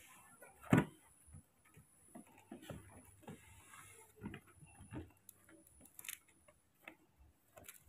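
Irregular light taps and clicks as baby monkeys move about on the floor and plastic feeding bottles are handled, with one louder knock about a second in.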